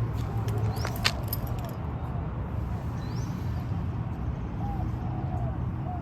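Outdoor background: a steady low rumble. A few short rising high chirps, and a couple of sharp clicks about a second in.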